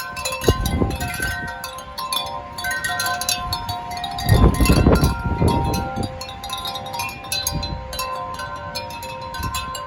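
Wind chimes ringing continuously in gusty wind, many overlapping tones struck again and again. Low gusts of wind rumble on the microphone several times, strongest about four to six seconds in.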